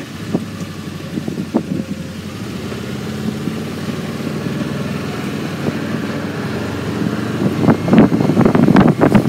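Vehicle engine running while driving along, getting gradually louder, and louder and rougher over the last second or two.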